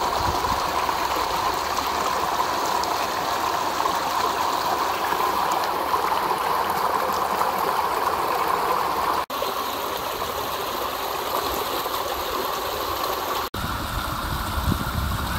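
Muddy flash-flood runoff after heavy rain, rushing and cascading over rocks in a wadi channel: a steady, unbroken rush of water. It cuts out for an instant twice, about nine and thirteen and a half seconds in.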